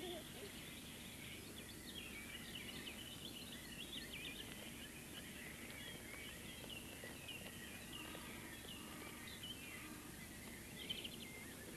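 Outdoor ambience of many small birds chirping and twittering, with a steady background hiss.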